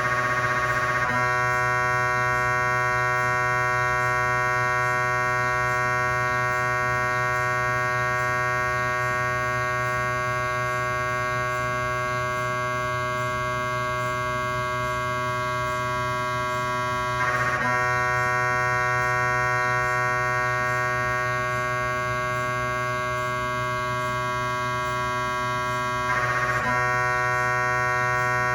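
GE 3T Twinspeed MRI scanner's gradient coils buzzing through a cardiac pulse sequence: a loud, steady drone of many fixed tones. It turns briefly harsher and louder at the start, again a little past halfway, and again near the end.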